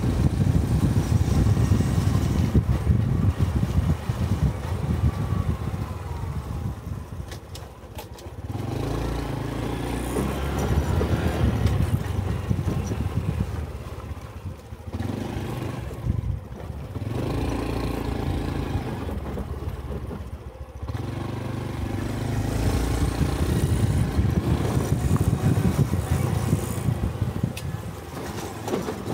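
A Honda 125 cc Cub's single-cylinder four-stroke engine running under way, with wind buffeting on the microphone. The engine note rises and falls several times as the bike speeds up and slows down.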